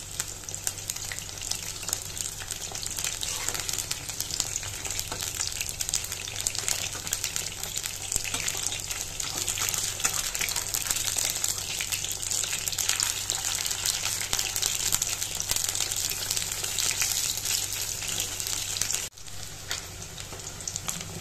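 Battered chicken strips frying in hot oil in a steel wok: dense, steady crackling and sizzling, with a brief break near the end.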